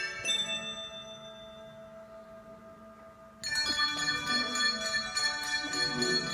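Handbells played by a handbell choir. A chord struck just after the start rings on and fades for about three seconds, then many bells come in together loudly and go on ringing in quick succession.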